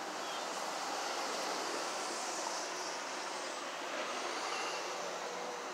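Road traffic crossing a concrete bridge: a steady rush of tyre and engine noise that swells a little in the middle.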